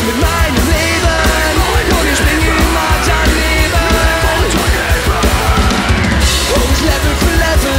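A rock band playing punk rock live and loud: electric guitars, electric bass and a drum kit.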